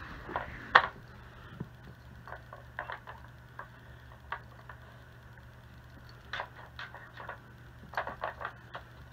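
Irregular sharp clicks and light knocks of a stacked plastic treat puzzle toy being nosed and shifted by a dog hunting for treats; the loudest click comes about a second in, with a quick run of clicks near the end.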